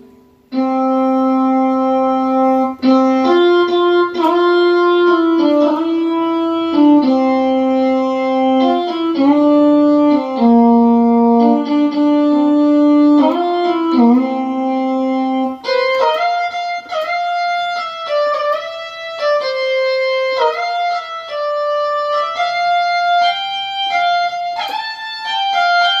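Roland D-50 synthesizer playing a melody on a factory preset. For about fifteen seconds it plays held, overlapping notes in a lower register, then a run of shorter, plucked-sounding notes higher up.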